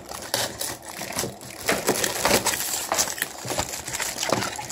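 Cardboard packing pieces and plastic wrap being handled and pulled off a ride-on toy car's motors: irregular crackling and rustling with small knocks.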